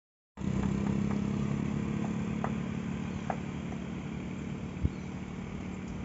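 A road vehicle's engine running with a steady low hum that fades slightly, cutting in abruptly just after the start. A single sharp knock about five seconds in.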